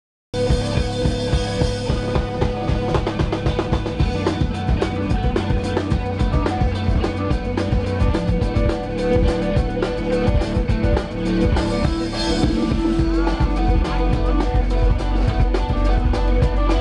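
A live band playing: drum kit, electric guitar, electric bass and keyboard, with steady drumming. The music starts abruptly, cut in mid-song.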